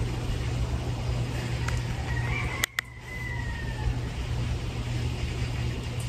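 A rooster crows once, faintly, about two seconds in: one call of about a second that rises, holds and falls slightly. Under it runs a steady low rumble, and two sharp clicks with a brief dropout cut in near the middle.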